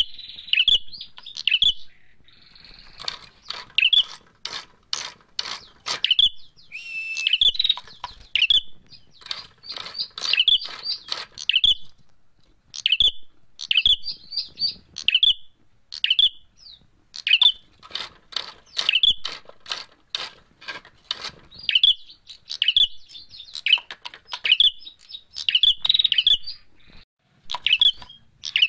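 Caged prenjak merah (ashy tailorbird) calling in rapid runs of short, sharp chirps with brief pauses between them, mixed with dry clicks. This is its fighting call, the kind keepers play as a lure.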